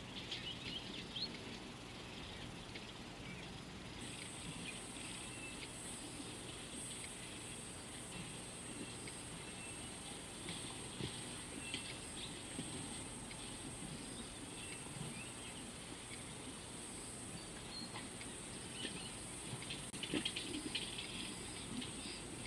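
Quiet outdoor bush ambience by a river: a steady high insect buzz comes in about four seconds in, with scattered bird chirps and soft rustling and snapping of vegetation as elephants feed, a cluster of crackles near the end.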